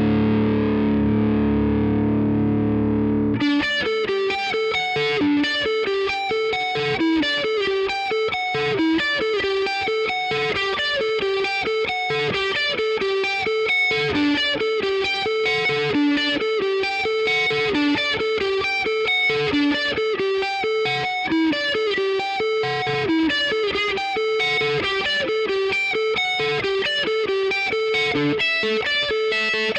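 Epiphone Les Paul 100 electric guitar played through an amp: a continuous run of quick single picked notes, several a second. For about the first three seconds a different sustained, distorted chord is heard instead, and it cuts off suddenly when the picking starts.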